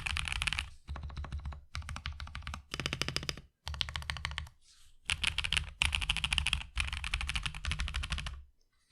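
Mechanical keyboard fitted with Badseed Tactile switches (JWK-made, long-pole stems, factory lubed) being typed on quickly: rapid key clacks in runs of about a second, with short pauses between runs.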